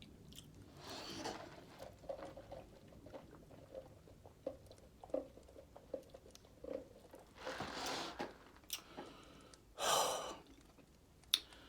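A person chewing fried chicken close to the microphone, with small wet mouth clicks and three audible breaths through the nose, about a second in, near eight seconds and near ten seconds.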